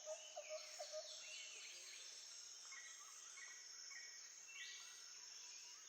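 Faint nature ambience: scattered bird chirps over a steady high insect drone.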